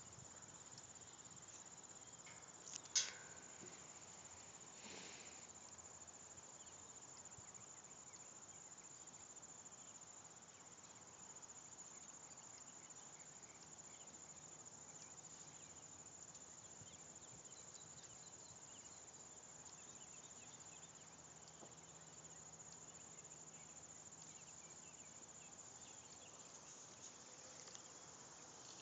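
Faint, steady high-pitched trilling of crickets, with one sharp click about three seconds in and a softer one about two seconds later.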